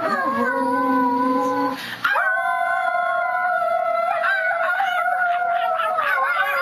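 Dog howling together with people howling along, several voices at different pitches overlapping in long drawn-out notes. There is a short break about two seconds in, then a long held howl to the end, with wavering voices joining partway through.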